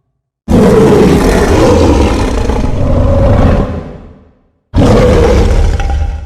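Godzilla roar sound effect, heard twice. A long, loud roar of about four seconds fades out, then a second roar starts abruptly and fades away near the end.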